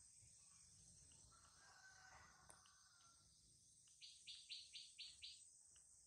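Near silence with a steady high insect hiss of crickets. About four seconds in comes a short run of six quick chirps.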